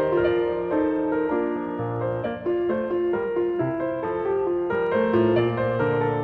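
Background instrumental music, likely piano: a running melody of short notes over a lower bass line.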